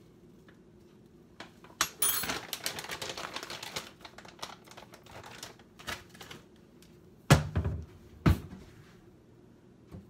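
A spoon and containers clattering as ground flaxseed is spooned into a shake: a flurry of rapid scrapes and taps about two seconds in, scattered clicks, then two heavy knocks about a second apart near the end.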